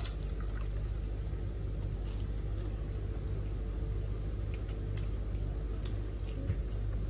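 Steady low hum, with faint scattered clicks and squishes of people chewing crispy fried chicken.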